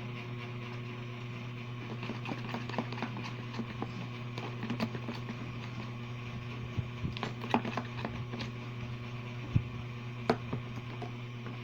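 Homemade slime being squeezed and kneaded by hand: irregular small wet clicks and squelches, with a few sharper clicks in the second half, over a steady low hum.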